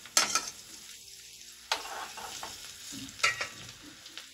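Finely chopped garlic sizzling in hot fat in a small tadka pan for kadhi, with a few sharp clinks of a steel spoon against the bowl and pan as the garlic is scraped in. The clinks come near the start, at about two seconds, and again near three seconds.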